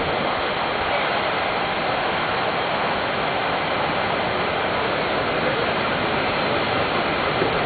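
Steady rushing of air from the blowers under the Flying Tires ride floor, which float the tire-shaped ride vehicles on a cushion of air.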